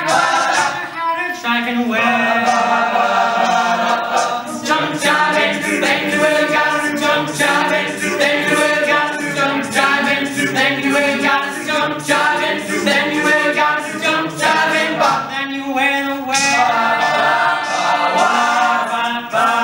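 Male a cappella group singing an upbeat swing number, led by a bass soloist over backing vocal harmonies, with a steady percussive beat.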